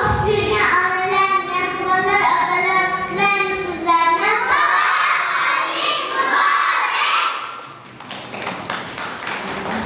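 Children singing a song, with long held notes in the first few seconds.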